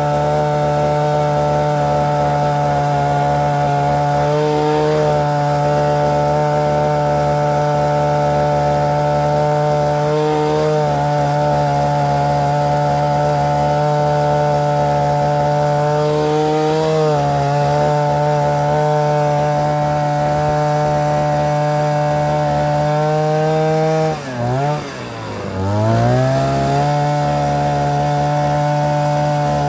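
Engine-driven post-hole auger running steadily under load while boring. About 24 seconds in, the engine bogs down hard twice, its pitch dropping steeply, then recovers to its steady run.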